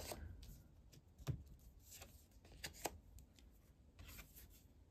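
Faint taps and rustles of small printed paper cards being picked up off stacks and gathered in the hand, a handful of soft clicks spread through the quiet, the clearest about a second in.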